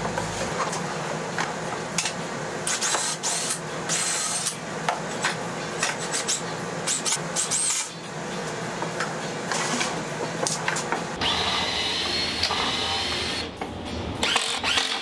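Cordless drill driving screws through the plywood into the 2x4 frame, running steadily for about two seconds near the end. Wooden knocks and clatter come throughout as the boards are shifted and fitted on the bench.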